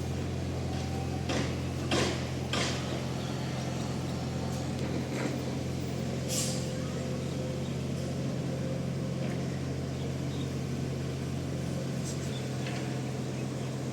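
Heavy construction machinery engine running with a steady low drone. Three short clanks come in the first few seconds, a brief hiss about six seconds in, and a few fainter knocks later.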